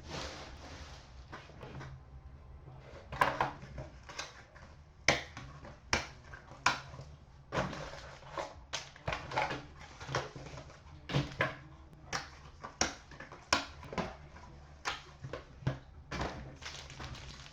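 A sealed box of trading cards being opened by hand: wrapping and cardboard crinkling and tearing, heard as irregular rustles and sharp snaps.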